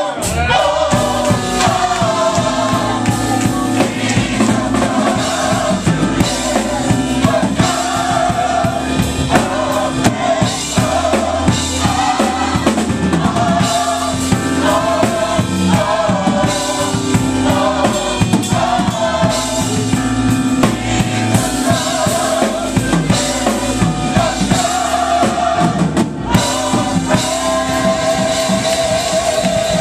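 Gospel choir singing with a live band: drum kit and bass keep a steady beat under held choir notes.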